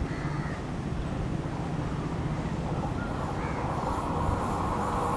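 WAP-7 electric locomotive hauling a passenger train on its approach: a steady low rumble that grows louder, with a high hiss joining about three seconds in.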